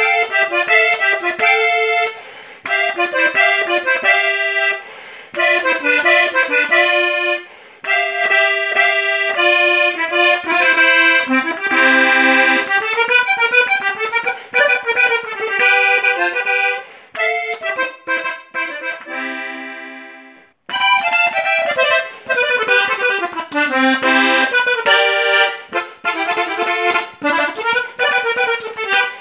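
Yingjie diatonic button accordion in G played solo: a melody over chords and bass notes in short phrases with brief gaps. The playing stops for a moment about two-thirds of the way through, then starts again.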